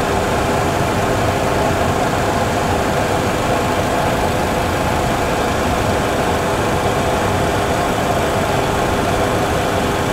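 Steady engine and airflow noise from a Boeing 737 Classic full-flight simulator's sound system, with a constant hum. It is the simulated sound of the one remaining engine, whose thrust is stuck at maximum after a governor failure.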